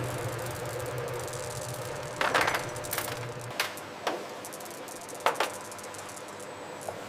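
Factory machine hum that drops away about halfway through, with a scattering of sharp clicks and clinks, several of them loud.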